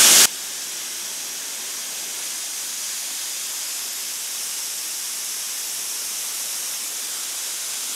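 Compressed air hissing steadily out of a paint spray gun held at full trigger with no cup fitted, while the regulator on the gun is turned up from about 10 to 26 psi, so the airflow grows a little louder over the stretch.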